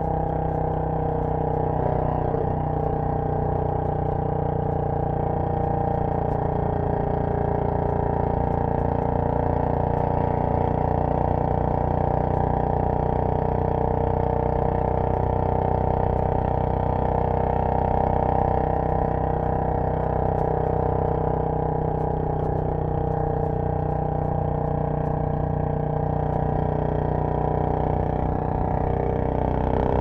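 Royal Enfield Bullet 500's single-cylinder engine running steadily under way, heard from the rider's seat.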